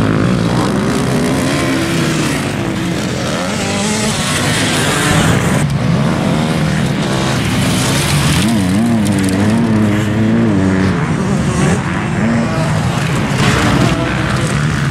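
Dirt bike engines revving up and down on a motocross track, one bike passing close about eight seconds in with its revs rising and falling strongly.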